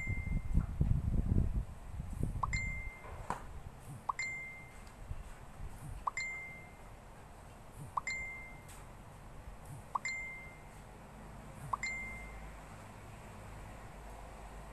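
A short, high, ding-like note repeats seven times, about every two seconds, each one starting with a soft click. Low rustling noise fills the first two seconds.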